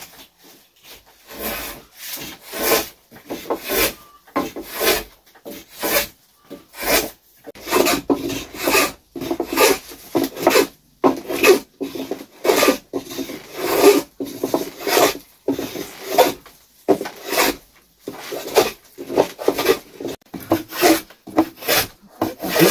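Hand saw cutting into a wooden pole with back-and-forth rasping strokes, about one a second at first and speeding up to about two a second after some eight seconds.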